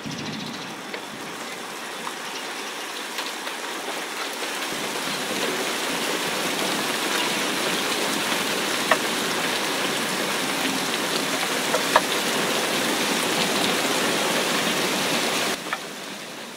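Monsoon rain falling steadily on leaves, swelling over the first few seconds, with a few sharp nearby drop hits; it falls away sharply near the end.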